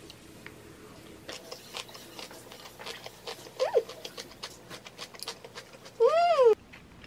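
A person chewing food close to the microphone, with many small crisp clicks. There is a brief high squeak in the middle, and near the end a short, louder high-pitched whine that rises and then falls.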